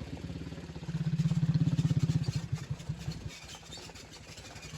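Vehicle engine running with a fast, even pulsing beat, getting louder about a second in and easing off over the last couple of seconds.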